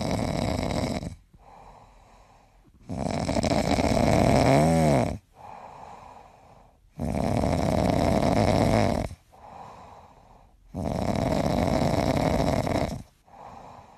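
A dog snoring in its sleep: four loud snores about every four seconds, each lasting about two seconds, with quieter breaths between. The second snore carries a brief pitched whine near its end.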